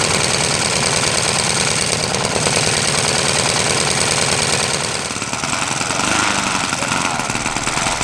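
Kolm 65 cc four-stroke engine of a large model aircraft running steadily, its propeller turning.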